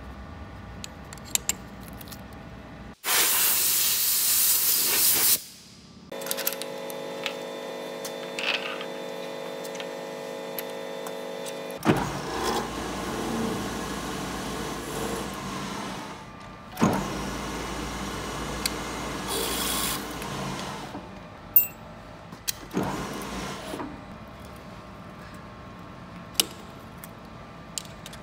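Hafco BM-63VE milling machine drilling tap holes in a hardened lathe chuck jaw, its spindle running with steady tones and the cut adding a rougher noise, heard in several short cuts. A loud hiss lasting about two seconds comes near the start.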